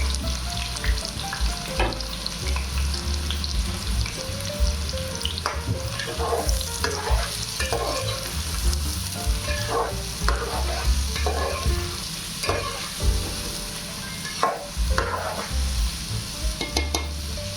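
Chopped onion sizzling in hot oil in a pan, stirred with a spatula that knocks and scrapes against the pan about once a second.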